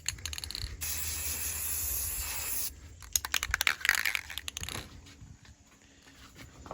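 Aerosol spray paint can hissing in two steady bursts, the first short and the second about two seconds long. Then comes a quick run of clicks and rattles for about two seconds.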